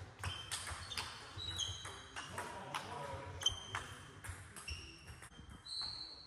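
Table tennis rally: the celluloid-type plastic ball clicking off rubber paddles and bouncing on the table in quick irregular back-and-forth, the hits ringing in a large hall.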